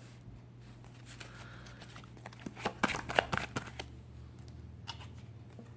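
Tarot cards being shuffled and handled: a quick run of crisp card snaps a little past halfway, and one more near the end, over a steady low hum.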